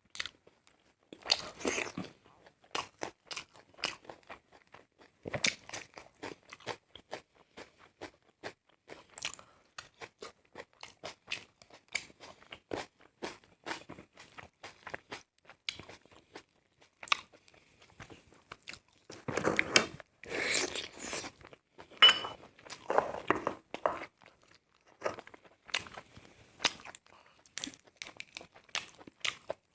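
Close-miked mouth sounds of a person eating: biting, chewing and crunching food with many short wet clicks and smacks, thickening into a louder run of crunching about two-thirds of the way through.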